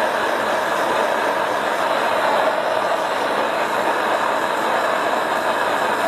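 Hose-fed propane torch burning steadily with a constant hissing rush as its flame is played along green bamboo to heat-treat it.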